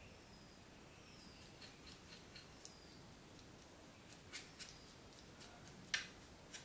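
Bristles of a small paintbrush flicking and scraping over a laptop's plastic chassis and vent grille: a string of faint, crisp ticks, more frequent in the second half, with the sharpest one about six seconds in.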